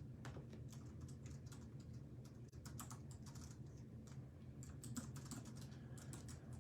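Typing on a computer keyboard: a quick, irregular run of faint key clicks over a low steady hum.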